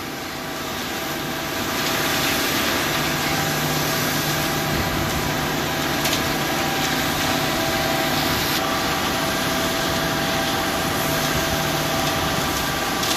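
Rock and gravel aggregate pouring down the batch plant's chute into a concrete mixer truck's turning drum, a steady rushing noise that builds up about a second and a half in, over the steady hum of the truck's engine and the plant machinery.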